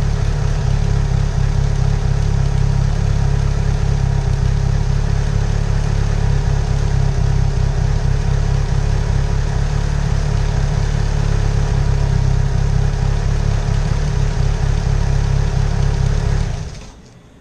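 Mitsubishi Eclipse GSX's turbocharged four-cylinder engine idling steadily after a fresh oil change, then switched off near the end and quickly winding down.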